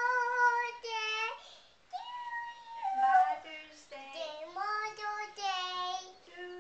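A young girl singing in a high voice, holding long notes that step and slide up and down in pitch, with short breaks between phrases.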